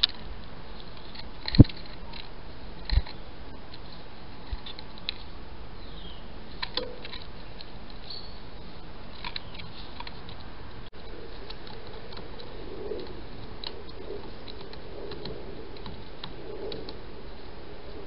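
Small garden birds at a seed and peanut feeder: scattered sharp knocks and taps, the loudest about one and a half seconds in, with a few faint high chirps.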